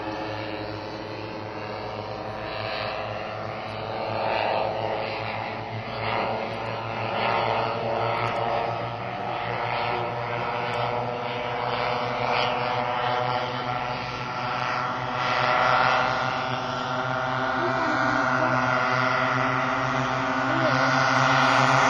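The four chainsaw two-stroke engines of a large radio-controlled B-29 model running steadily in flight, a continuous drone that grows louder as the plane comes in low near the end.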